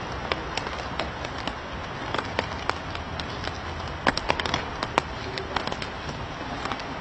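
Wind rushing over the camera microphone as a storm approaches, with scattered crackling clicks coming irregularly, more of them around the middle.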